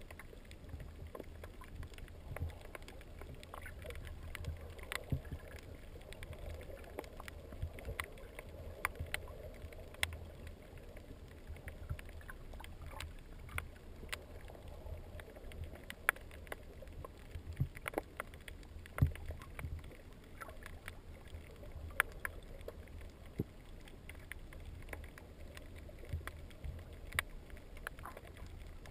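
Underwater sound picked up by a GoPro in its waterproof housing: a low, muffled rumble with scattered sharp clicks and ticks.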